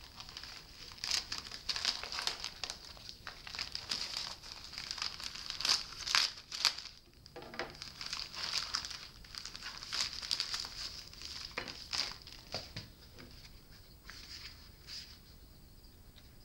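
Plastic courier mailer bag being cut with a knife and torn open by hand, crinkling and tearing in irregular bursts that die down near the end.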